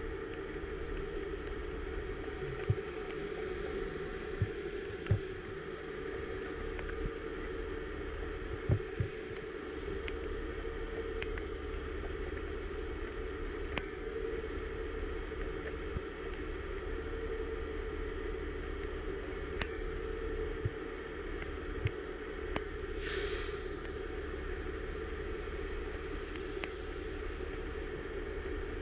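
Diesel engines running steadily: a heavy rotator tow truck holding a lifted dump truck bed on its boom while the truck with the lowboy trailer pulls out from under it. A few short knocks, and a brief hiss about three-quarters of the way through.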